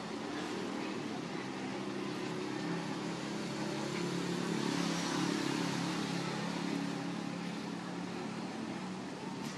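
A motor vehicle's engine going by: a steady hum that swells to a peak about halfway through, then fades.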